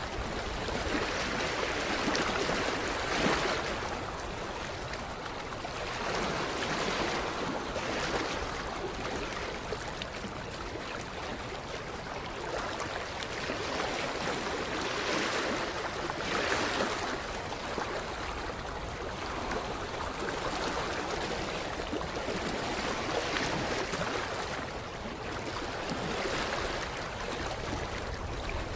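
Water lapping against a creek shoreline, in small irregular surges that swell and fade every few seconds.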